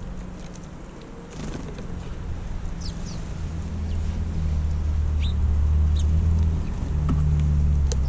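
A low engine hum from a motor vehicle grows louder about three and a half seconds in and stays loud, with a few short, high chirps from house sparrows at the feeder.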